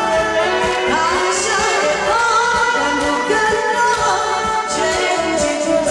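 Music: a slow Mandarin pop ballad, a wavering melody line over a steady accompaniment beat.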